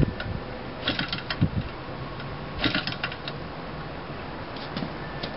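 Small choked gasoline model-aircraft engine being flipped over by hand at its propeller without firing: short runs of clicking as it turns over, three times, about a second in, near three seconds and near five seconds, with a low thump in between.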